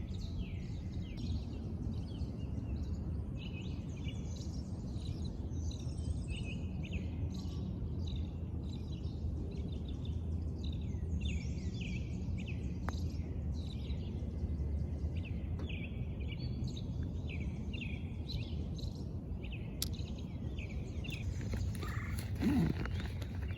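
Many small birds chirping and singing over a steady low outdoor rumble, with a brief louder sound near the end.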